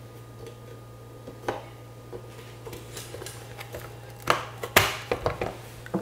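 A Corsair Vengeance DDR4 memory stick being pressed into a motherboard's RAM slot: one small click about a second and a half in, then a quick run of sharp clicks and knocks a little after four seconds in as the module seats in the slot.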